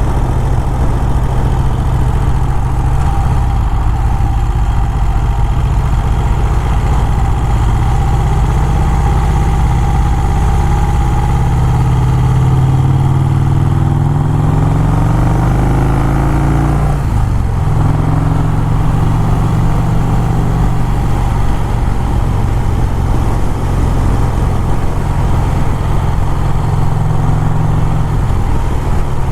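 Motorcycle engine running under way with low wind rumble. About twelve seconds in it revs up with a rising pitch, drops sharply at a gear change, then runs steadily in the higher gear.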